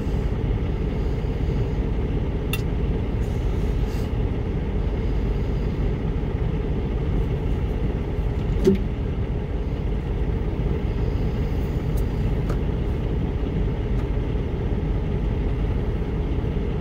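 Steady low rumble of a semi truck's diesel engine idling, heard from inside the cab, with a few faint clicks and one brief louder sound near the middle.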